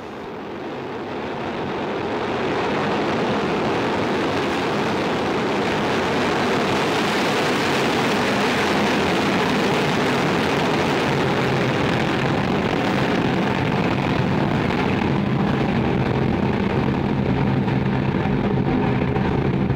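Soyuz ST-A rocket's first-stage and booster engines at liftoff: a loud, steady rocket roar that builds over the first two or three seconds and then holds.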